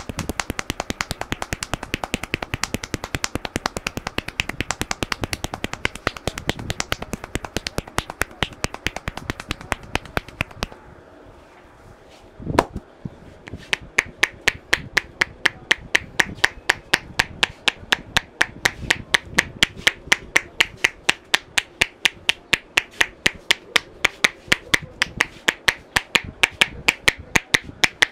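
Barber's hands tapping rapidly on the head during an Indian head massage: a fast, even run of sharp clicks. It stops about eleven seconds in, then after a short pause starts again, louder and slower, at about three taps a second.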